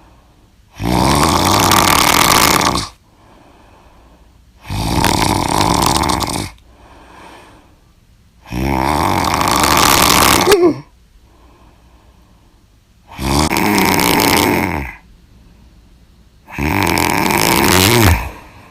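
A person snoring loudly in sleep: five long snores, each lasting about two seconds and coming roughly every four seconds, with quiet gaps between them.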